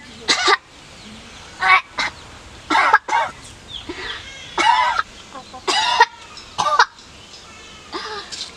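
A woman retching repeatedly, in short harsh bursts about a second apart.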